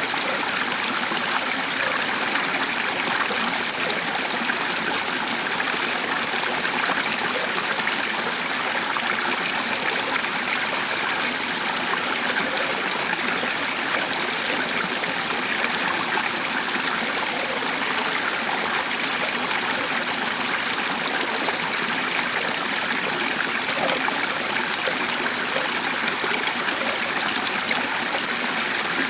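Steady rushing and trickling of a stream of flowing water, even and unbroken.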